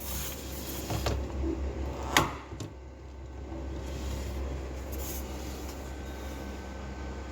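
Plastic storage box inside a refrigerator being handled, sliding and rubbing, with a faint click about a second in and a sharper click a little after two seconds, over a steady low hum.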